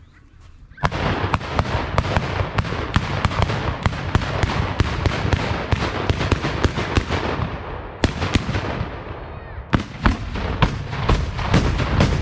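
A rolling barrage of black-powder salute guns (Böller) fired in a running series along a line of shooters: sharp reports, about three a second, over a continuous rumble, starting just under a second in and dipping briefly twice in the second half before carrying on.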